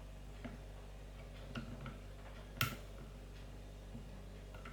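Small metallic clicks of a disc-detainer pick turning the discs inside an Oxford Boss disc lock under light tension, with one sharper, louder click a little past halfway.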